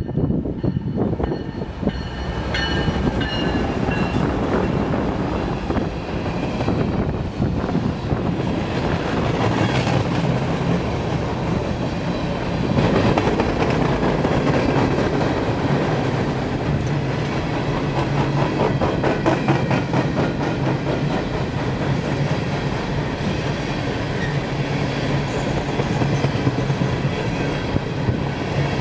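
A freight train passing close by. Diesel locomotives approach and go by, loudest about a third of the way in. A long string of coal gondolas follows, rolling past with a steady clickety-clack of wheels over the rail joints.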